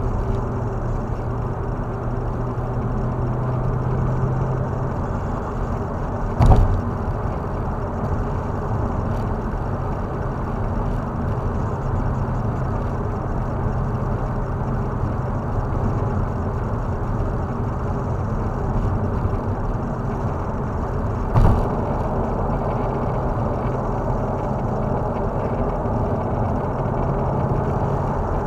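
Steady road and tyre noise inside a car cruising at highway speed, with a low, even engine drone. Two short thumps stand out, about six seconds in and again about fifteen seconds later.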